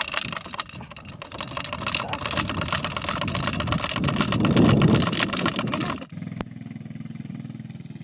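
Farm bike engine running under rough, crackling noise that peaks about four to five seconds in. About six seconds in, the sound changes abruptly to a steadier, evenly pulsing low engine note.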